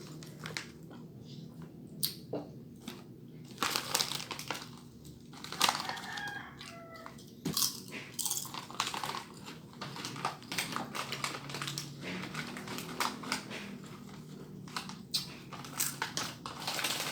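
Snack packaging crinkling and food being crunched and eaten close to the microphone: a scattered run of sharp crackles and clicks.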